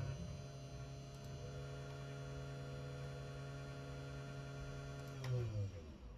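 CNC 3018 Pro router running with a steady hum. Near the end the pitch falls away as it slows down.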